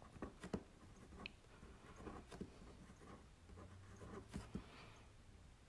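Faint, irregular taps and short scratches of a drawing tool making quick strokes on watercolour paper.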